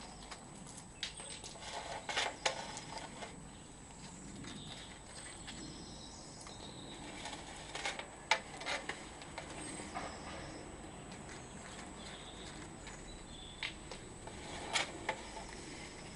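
Drain survey camera's push rod being hauled back through a storm drain: scattered clicks and knocks in small clusters over a steady hiss, with a faint steady high tone throughout.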